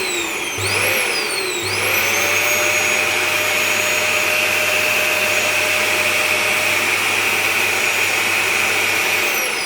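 Dyson DC41 upright vacuum cleaner motor switched on, surging up in pitch twice before settling into a steady, loud, high-pitched whine. Near the end it is switched off and the whine falls as the motor winds down.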